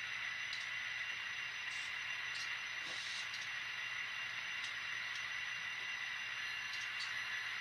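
Sound-equipped N scale model diesel locomotives idling through their tiny decoder speakers, a steady hissy engine sound with a faint low hum and a few light ticks; no horn sounds.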